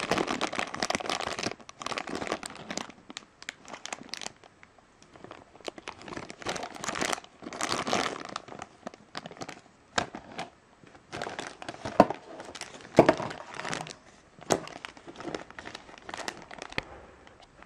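Thin clear plastic bag crinkling in irregular bursts as an action figure is worked out of it. Two sharper, louder crackles come about two-thirds of the way through.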